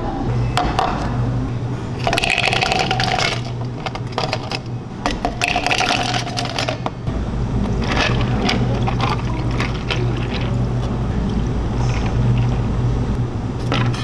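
Iced drinks being made: ice clattering into glasses, then water poured over the ice from pitchers, with clinking and crackling ice. A steady low hum runs underneath.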